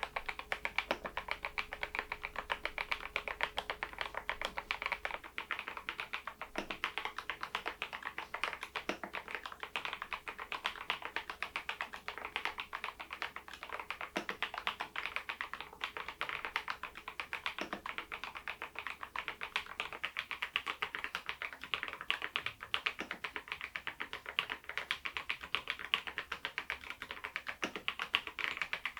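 Continuous typing on a Machenike K500 PRO mechanical keyboard fitted with Adelie V2 switches: a steady, dense run of keystrokes.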